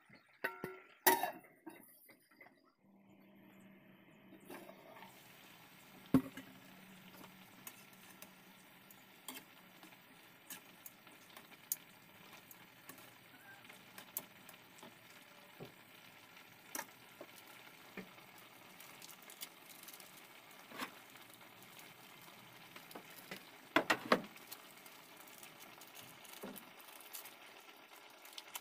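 Chicken wings simmering in adobo sauce in an aluminium wok, a steady bubbling hiss, with scattered clinks and knocks of metal tongs against the wok as the pieces are turned. There is a louder cluster of knocks about a second in and again near the end.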